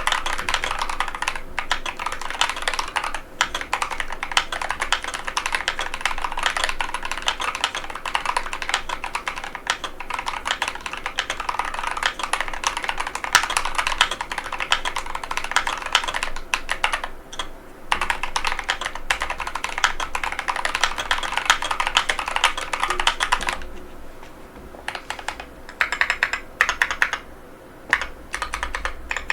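Fast, continuous typing on a NovelKeys NK87 aluminium mechanical keyboard with KTT Matcha tactile switches and PBT OEM-profile keycaps: a dense run of key clicks and spacebar strokes. The typing slows briefly about two-thirds of the way through, then picks up in short bursts.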